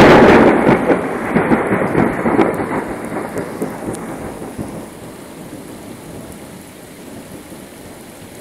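A loud thunderclap breaks suddenly, then rumbles and crackles as it fades away over about five seconds, with steady rain hissing underneath.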